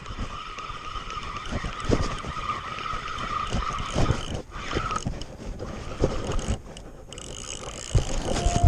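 Fishing reel drag whining steadily for about five seconds as a hooked mahi-mahi takes line, under irregular rubbing and knocking of a body-mounted camera against clothing.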